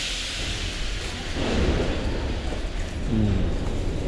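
Metro train standing at a station with its doors open: a hiss over a low rumble, the hiss fading after about a second and a half.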